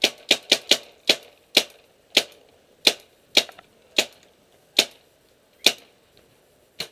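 Paintball marker firing about a dozen sharp shots: a quick run of four at the start, then single shots slowing to roughly one every two-thirds of a second.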